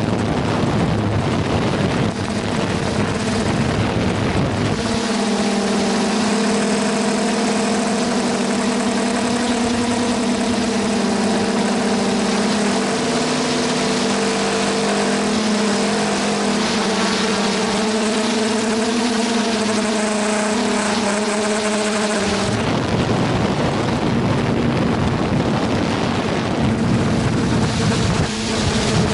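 Quadcopter's four brushless motors and 9-inch propellers buzzing steadily, heard from the camera on board, with air rushing over the microphone. From about five seconds in the rushing drops away, leaving the steady motor tones clear, and it comes back near the end.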